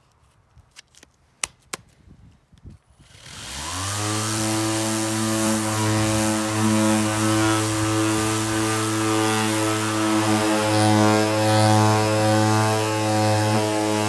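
A few sharp clicks, then an AEG 18V cordless random orbit sander starts about three seconds in, its pitch rising briefly as the motor spins up, and runs steadily with a hissing drone as it sands a round wooden board.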